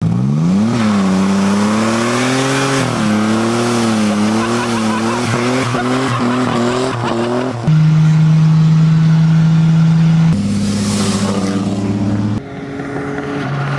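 Car engine running and revving, its pitch rising and falling, then held steady. The sound changes abruptly several times, like a string of spliced clips.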